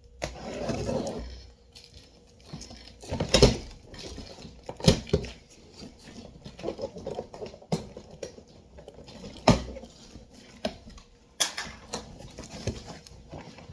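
Packaging being opened and rummaged through by hand: a burst of rustling, then a string of sharp knocks and clatters, four of them louder than the rest.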